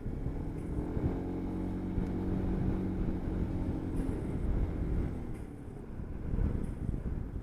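A motor vehicle's engine hum that swells and then fades over about five seconds, over a low rumble of wind buffeting the microphone.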